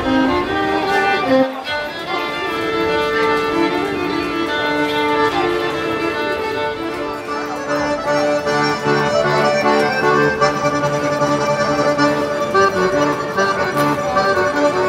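Two violins playing a duet for the first second or so, then, after a cut, two accordions playing a tune together with long held notes and chords.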